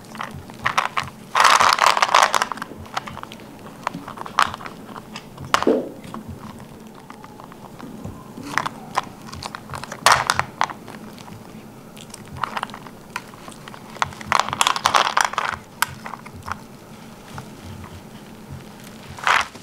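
Baby macaque crunching and chewing candy, with irregular clicks and rattles as it handles a plastic toy plane filled with sweets. The crunching comes in bursts, loudest about two seconds in and again near fifteen seconds.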